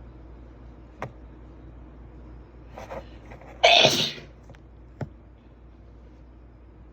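A person's single strong sneeze about halfway through, preceded by a short breathy inhale.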